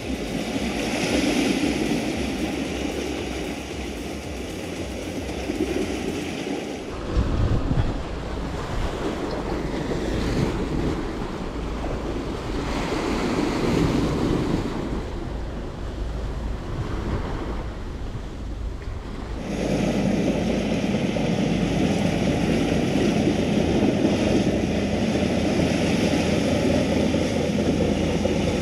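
Waves washing against a rocky shore, with wind buffeting the microphone. Past two-thirds of the way in, a steady engine hum from a passing high-speed passenger boat joins the surf.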